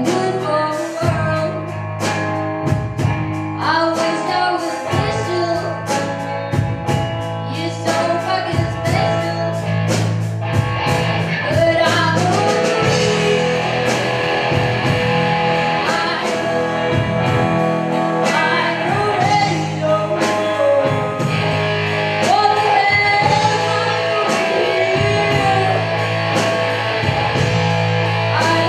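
A teenage girl singing a song into a microphone, accompanied live by a small rock band of drum kit and electric guitar, with cymbals struck in a steady rhythm.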